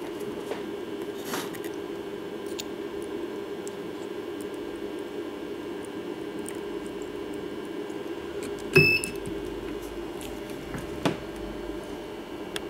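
Resistance spot welder firing through a handheld welding handle: one sharp snap with a short beep as a metal strip is welded onto a battery cell terminal, then a softer click about two seconds later. A steady low hum sits underneath.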